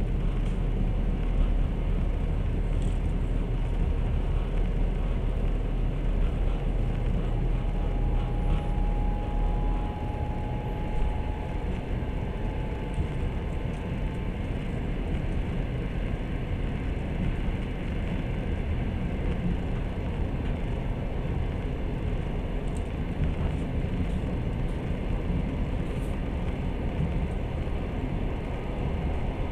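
Steady rumble of a moving passenger train heard from inside the carriage, wheels running on the rails, with a faint thin whine for a few seconds near the middle.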